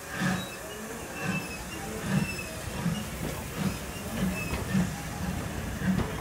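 A steam locomotive pulls its coaches out of a station, its exhaust beats coming regularly and quickening as the train gathers speed. Thin squeals from the wheels sound over the rumble of the coaches rolling past.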